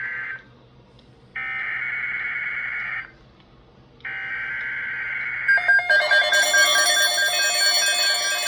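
NOAA Weather Radio Emergency Alert System header: bursts of harsh, buzzing digital data tones about a second and a half long, with short gaps between them (the tail of one, then two more). About five and a half seconds in, a pulsing electronic alert tone takes over.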